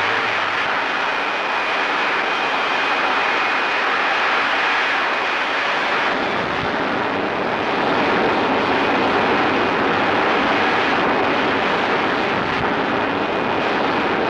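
Jet airliner's engines at takeoff power: a loud, steady rushing noise with a thin high whine. The noise grows fuller and deeper about six seconds in.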